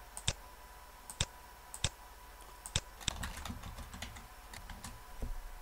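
Typing on a computer keyboard: separate key clicks at an uneven pace, with short pauses between them.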